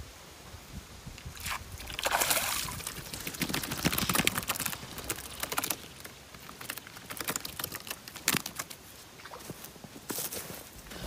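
A hooked wolffish thrashing and splashing at the surface of the swamp water, loudest about two seconds in and again around four seconds in, followed by scattered rustles and taps as it is dragged out and flops on the dry grass and dirt of the bank.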